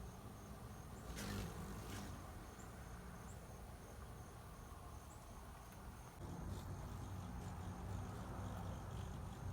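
Faint, high-pitched chirps of hummingbirds over a steady, thin, high pulsing trill, with two soft knocks early on.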